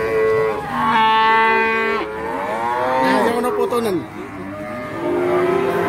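Cattle mooing: a long, steady moo about a second in, followed by more moos that bend in pitch.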